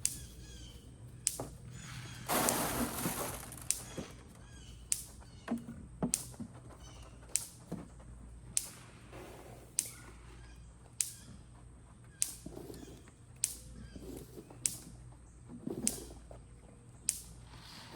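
Electric fence pulsing, a sharp snap about once every 1.2 seconds, over a faint steady hum. A louder rustling burst comes about two seconds in.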